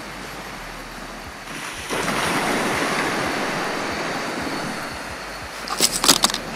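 Sea waves breaking on the shore, over a steady hiss of surf. About two seconds in, a wave washes in loudly and slowly fades. Near the end comes a quick cluster of sharp clicks.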